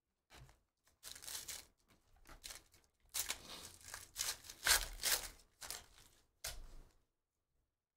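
Foil wrapper of a trading-card pack being torn open and crinkled: a series of short crackly tears and rustles, loudest a few seconds in, stopping about a second before the end.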